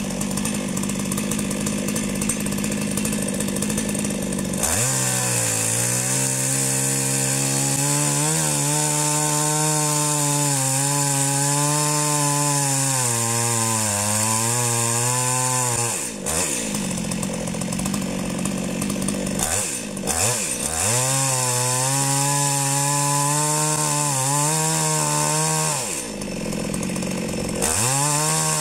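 Solo 656 two-stroke chainsaw at full throttle. It revs freely high and steady for the first few seconds, then its pitch drops and wavers as the chain bogs down cutting into a fir trunk. The pitch flares back up whenever the load comes off, briefly about halfway through and again near the end, before the saw goes back into the cut.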